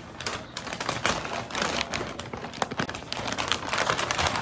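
Gift wrapping paper being torn and crumpled in a rapid, irregular crackle as a large present is unwrapped.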